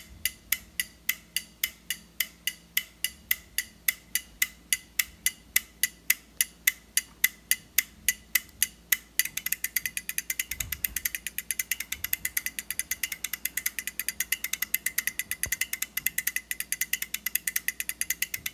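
Relays on an eight-channel DMX relay output board clicking on and off as a programmed sequence steps through the outputs. The clicks are sharp and evenly paced, about three or four a second, and about nine seconds in they speed up to roughly twice that rate.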